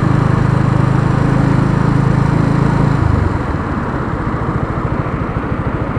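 Suzuki Gixxer SF 250's single-cylinder engine running steadily while riding. About three seconds in, the note drops and gets quieter as the rider comes off the throttle, leaving a lower, pulsing run.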